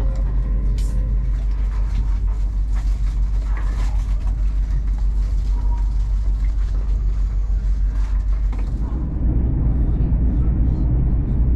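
Inside the passenger saloon of an LNER Class 801 Azuma electric train on the move: a steady low rumble and hum with scattered light clicks and knocks. About 9 seconds in, the rumble turns louder and fuller as the train runs faster through open country.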